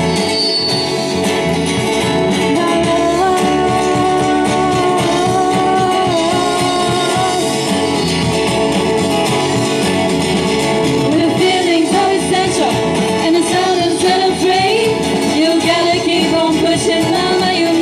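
A live band playing a song: women singing over acoustic guitars, an electric bass guitar and a drum kit.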